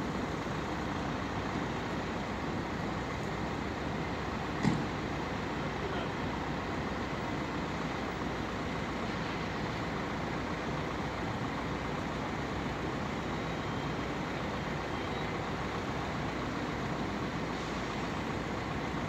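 Steady drone of idling vehicle engines, with one brief knock about four and a half seconds in.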